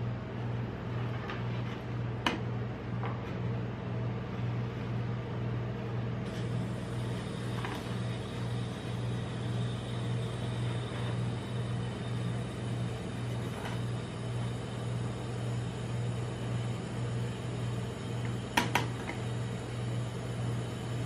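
Steady low hum of the rolled-ice-cream machine's refrigerated cold plate, with a metal spatula scraping and rolling ice cream across the frozen steel pan. A sharp tap of the spatula on the plate about two seconds in, and a louder pair of taps near the end.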